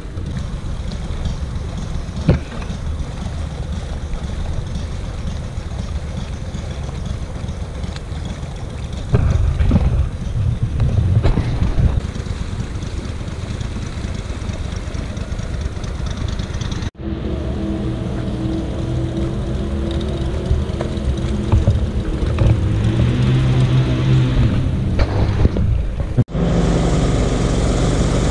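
Boat engine running steadily under way, with wind on the microphone. It cuts out abruptly twice and comes back each time with a different pitch.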